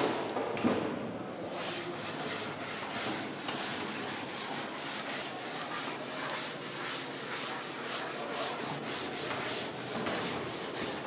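Chalkboard duster rubbing chalk off a board in rhythmic back-and-forth strokes.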